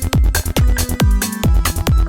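Electronic dance music with a steady kick-drum beat, a little over two beats a second, and hi-hats ticking between the beats over sustained synth tones.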